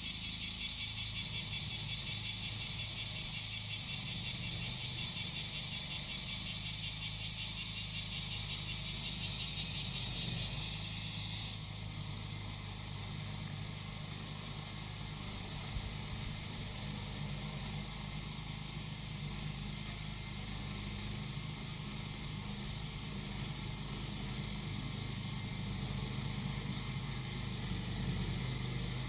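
A cicada sings in fast, even pulses, about four a second, and stops abruptly about eleven seconds in. Under it the small engine of a grass-cutting machine runs steadily with a low hum the whole time.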